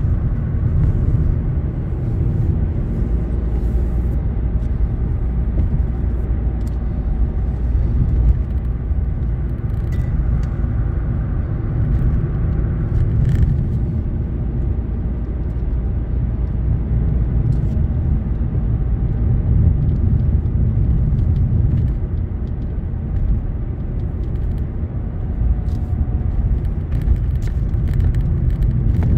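Car driving at steady speed, heard from inside the cabin: a continuous low rumble of engine and tyres on the road.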